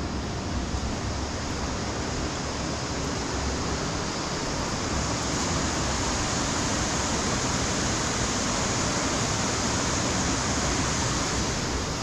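Steady rush of running water, growing slightly louder through the middle.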